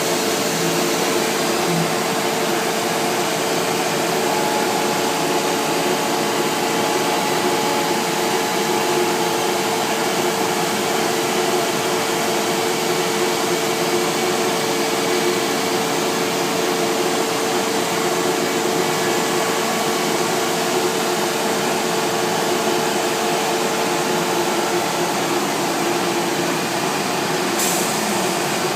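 CNC router running steadily while machining MDF panels: an even, noisy whir with a few steady tones in it and no breaks.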